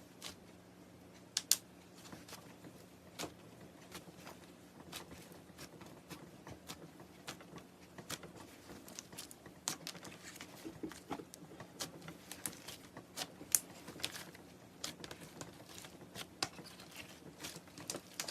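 Slime being squeezed and poked by hand, making irregular sticky clicks and small pops, at times several a second, over a faint steady hum.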